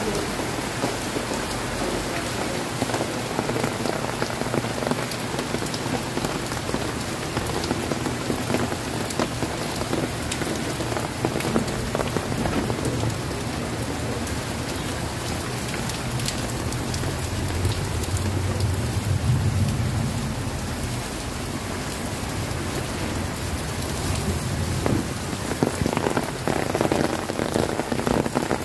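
Heavy rain falling steadily on pavement and nearby surfaces, with many individual drops ticking close by. A low rumble swells and fades about two-thirds of the way through.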